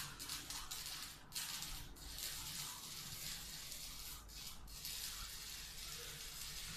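Electric arc welding on a galvanized iron handrail: the arc hisses steadily, broken by a few short pauses as it drops out for a moment.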